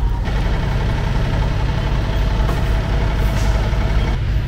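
A truck engine idling steadily: an even low hum with no change in speed.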